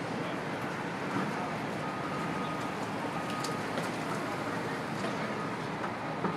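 Steady city street noise from passing road traffic, with a faint thin high tone that comes and goes.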